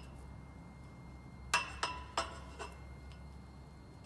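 Needle-nose pliers snipping wires at a stainless steel tower tube: a quick run of about four sharp metallic clicks with a short ring, starting about a second and a half in.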